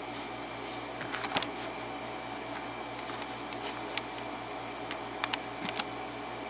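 A few light clicks and taps from handling small metal lock-picking tools at a lock held in a holder, in small clusters, over a steady hum.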